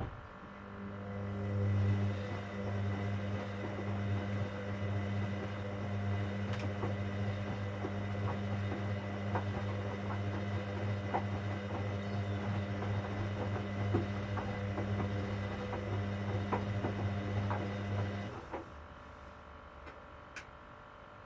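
Hoover Dynamic Next washing machine running with a steady low hum and scattered light clicks and rattles, stopping abruptly near the end.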